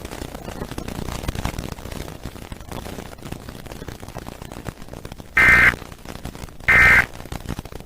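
Steady hiss of a broadcast with no programme, then, near the end, two short bursts of the Emergency Alert System end-of-message digital data code, a little over a second apart, with a third burst just beginning.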